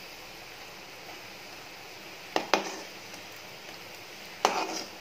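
Snake gourd bondas deep-frying in hot oil in a metal kadai, a steady sizzle. A metal spoon knocks against the pan twice in quick succession about two and a half seconds in and once more near the end.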